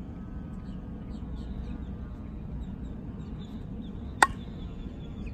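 Miken Freak Primo composite slowpitch softball bat striking the pitched ball once about four seconds in, a single sharp ping. Faint birdsong over a low outdoor background.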